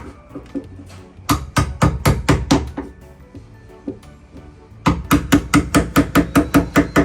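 A hammer striking a wood chisel in quick runs of sharp blows, trimming the corners of a lock mortise cut into a wooden door so the lock body will fit. About six blows come around a second in, then a faster run of about fifteen from about five seconds in.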